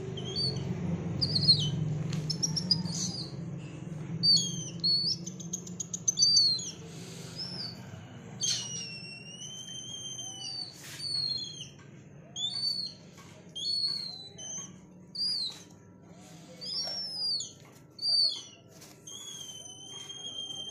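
Birds chirping and whistling: short, clear calls that glide up and down, coming roughly once a second in the second half, over a low hum that fades out about halfway through.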